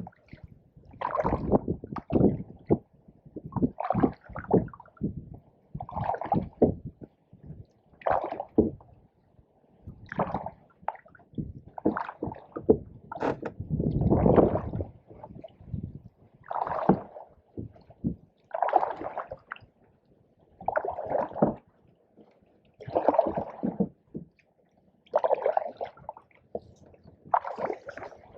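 Canoe paddle strokes in pond water: a gurgling splash about every two seconds as the blade pulls through and drips.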